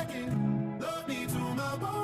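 Background music with a steady low beat and sustained melody notes.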